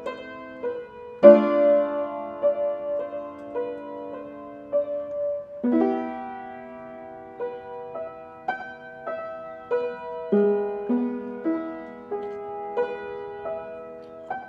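Slow piano music: a chord struck every four or five seconds, with single melody notes over it.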